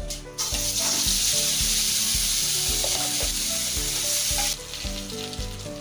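Loud sizzling as something wet is poured into hot oil with cumin seeds in a kadai, starting about half a second in and dropping off sharply about four and a half seconds in to a lighter frying crackle.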